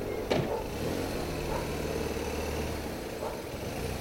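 A slow-moving line of cars with a low, steady engine hum and faint voices from onlookers behind it. A single sharp knock comes just after the start.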